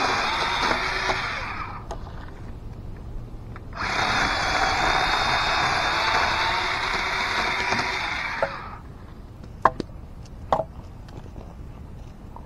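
Battery-powered electric chainsaw cutting through a log, running in two stretches: one that stops about two seconds in, then another from about four seconds to about eight and a half. A few short, sharp knocks follow around ten seconds in.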